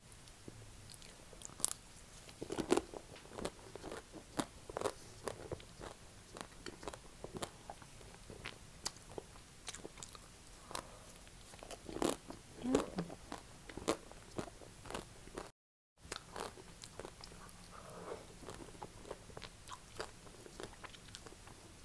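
Ice cream being bitten and chewed, with many sharp clicks and crunches and wet mouth sounds. The sound cuts out briefly about two-thirds of the way through.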